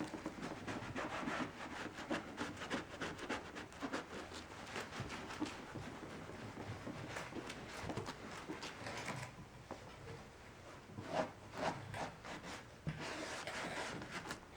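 Cloth rubbing briskly over a plastic headlight lens in quick, repeated strokes, wiping off compound and polish residue. The rubbing eases about nine seconds in, leaving a few scattered, quieter handling sounds.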